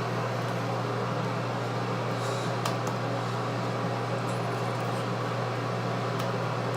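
A steady low hum with an even hiss, like a fan or other running machine, with a few faint clicks partway through.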